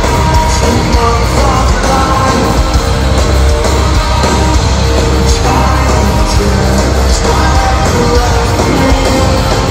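Live heavy metal band playing at full volume: distorted electric guitars, bass and drums, steady and dense throughout.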